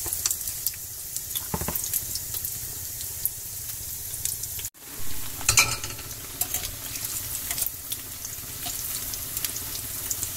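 Shrimp-and-cheese fritters sizzling and crackling in hot frying oil, with metal tongs clicking against the pan as the fritters are turned. The sound cuts out for an instant a little before halfway through.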